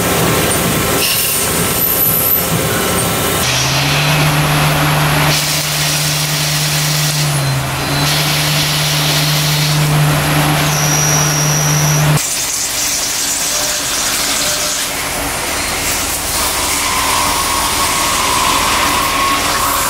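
CNC lathe and machining-center cutting noise, metal being turned and milled, in a string of short clips that change abruptly every few seconds. A steady machine hum runs from about three and a half to twelve seconds in.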